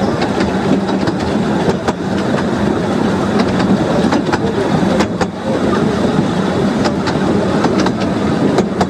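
15-inch gauge railway carriage wheels rolling over the track, a steady rumble broken by irregular clicks as the wheels cross rail joints and pointwork.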